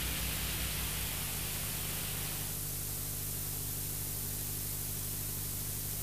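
Steady hiss with a low, even hum underneath, the background noise of an old analogue video recording with no one speaking; the hiss drops a little about two and a half seconds in.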